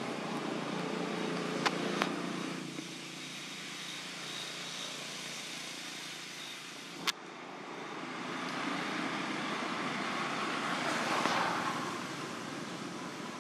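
Outdoor background with motor-vehicle noise: a low engine hum fades out in the first few seconds, then a vehicle's noise swells, peaks and fades away near the end. A few sharp clicks, the loudest about seven seconds in.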